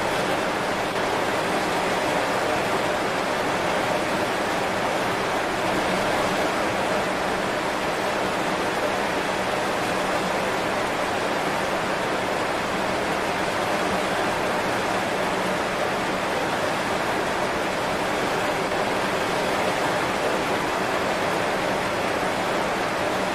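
Heavy rain falling steadily on banana leaves.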